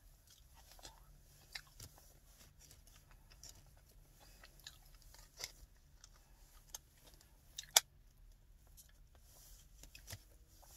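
Faint chewing and wet mouth sounds of someone eating a soft pretzel bite dipped in cheese sauce, with scattered small clicks and smacks; the sharpest click comes about three quarters of the way through.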